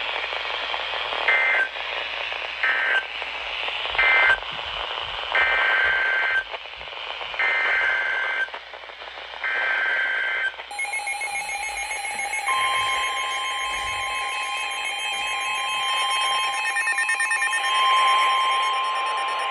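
Emergency Alert System tones on a weather radio broadcast. First come three short screeching digital data bursts, the end-of-message code, then three longer bursts, the header of the next warning. About ten seconds in a pulsing electronic alarm starts, and soon after, a steady high attention tone near 1 kHz joins it and holds.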